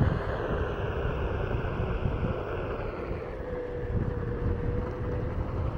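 Wind buffeting the microphone while riding a Onewheel GT electric skateboard, with a steady rolling rumble and a thin, steady hum from the board's hub motor coming in about halfway through.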